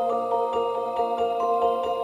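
Background music: a melody of short notes moving in steps over held tones, with a soft, quick, even pulse underneath.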